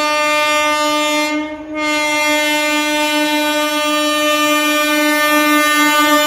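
Horn of an approaching EMU local train sounding a long, steady, loud blast. It breaks off briefly about a second and a half in, then holds on again.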